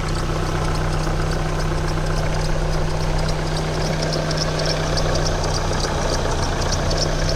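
Opel engine idling under an open bonnet, with rapid, uneven high-pitched squeaking chirps from the alternator belt's tensioner pulley. The squeal comes from the pulley's worn bearing, which is binding.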